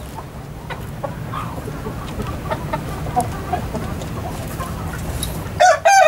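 A flock of chickens clucking softly in short, scattered calls over a steady low hum, then near the end a rooster starts a loud crow.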